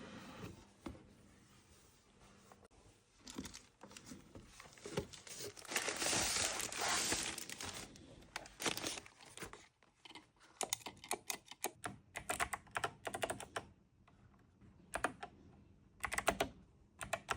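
Typing on an 8BitDo mechanical keyboard, its keys clicking in quick runs through the second half. Earlier there is a stretch of crinkling and rustling.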